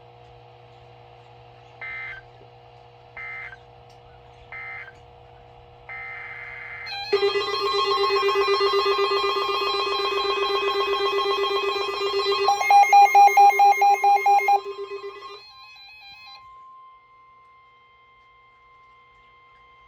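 Emergency Alert System tones on NOAA Weather Radio. A few seconds in come three short screechy bursts of digital header data. From about seven seconds a loud, warbling alert tone sounds; it breaks into rapid beeping about twelve seconds in and cuts off about fifteen seconds in, leaving only a faint steady tone.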